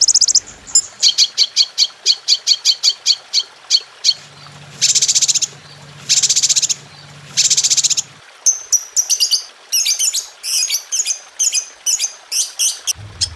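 Songbird calls: a run of quick, sharp high chirps, then three long buzzy trills of about a second each, then rapid, varied high chirping.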